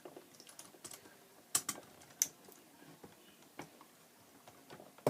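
Scattered light clicks and taps of small toy parts being handled, as a land leveler attachment is fitted onto a 1/16 scale die-cast John Deere CT322 skid steer model; a few sharper clicks come about a second and a half to two seconds in.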